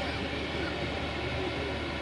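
Steady low drone of a TAKRAF EDK-1000 rail crane's diesel engine running at the work site.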